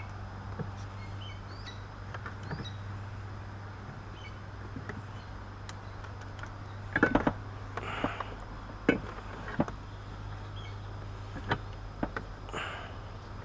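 Scattered clicks and knocks from a harness bar and its bolts being handled and fitted at the seatbelt mounts. There is a quick cluster of three about seven seconds in, then single knocks every second or so. A steady low hum runs underneath.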